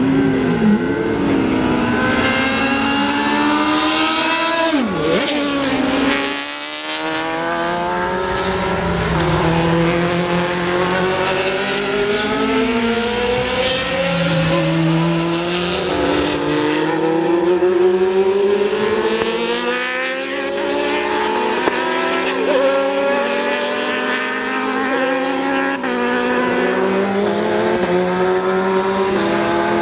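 Formula 1 racing engines, among them the 1991 Osella FondMetal's Ford Cosworth V8, revving hard up through the gears and dropping back as the cars lift off for corners. One car passes close about six seconds in, its note falling sharply as it goes by.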